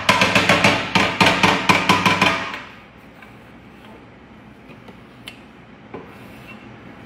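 Polycarbonate chocolate mould full of white chocolate being knocked down hard on a granite worktop again and again, a rapid run of sharp knocks about five a second that stops after about two and a half seconds. This is the usual tapping that settles the chocolate into the cavities and brings up air bubbles.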